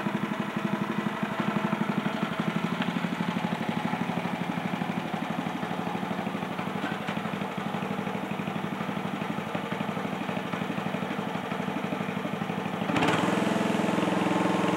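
Small go-kart engine running with a steady, fast putter. About thirteen seconds in it abruptly becomes louder and fuller.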